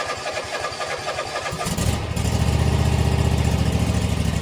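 Husqvarna MZ52 zero-turn mower engine cranking on the starter with an even chugging rhythm, then catching about two seconds in and running steadily.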